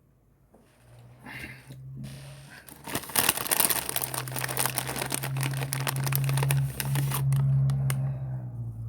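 Crunchy Cheetos bag crinkling and rustling as it is handled, loudest from about three seconds in and stopping just before the end, with a low steady hum underneath.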